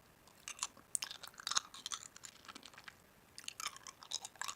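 Close-miked chewing of crunchy food: two bouts of crisp crackling bites, about half a second in and again near the end, with a quieter pause between.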